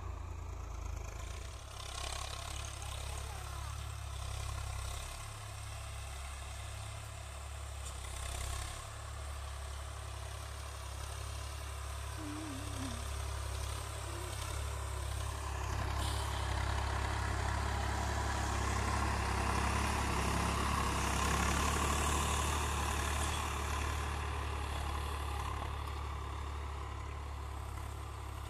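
Swaraj 855 FE tractor's three-cylinder diesel engine running steadily under load as it pulls a cultivator through the soil. It grows louder after the middle, then eases off near the end.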